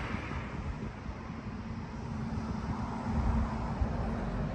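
Road traffic passing close by: car engines and tyre noise on the highway, with a heavier low rumble from a passing vehicle about three seconds in.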